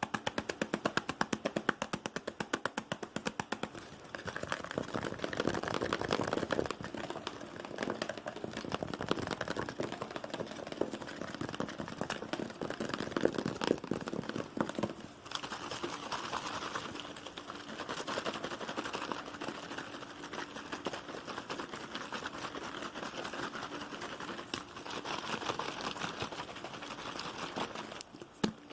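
Fast, aggressive ASMR tapping on objects: a run of sharp, evenly spaced taps for the first few seconds, then denser, quicker tapping.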